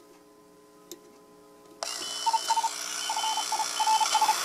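A Splinter 40-meter direct-conversion ham transceiver being switched on: a click about a second in, then under two seconds in its speaker suddenly comes alive with band hiss and Morse code signals beeping, one strong mid-pitched station keying dots and dashes and a fainter higher one.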